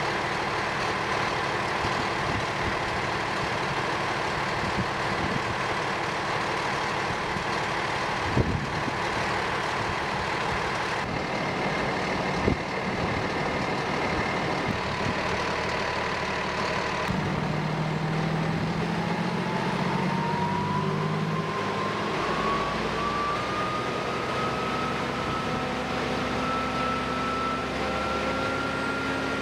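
Fire engine running with its fire pump engaged, a steady mechanical drone with a couple of sharp knocks about a third of the way in. From a little past halfway a whine rises steadily in pitch as the pump is brought up and discharge pressure climbs.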